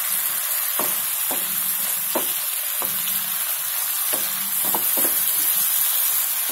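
Shrimp sizzling in ghee and garlic sauce in a non-stick pan, stirred with a wooden spatula that knocks and scrapes against the pan about seven times.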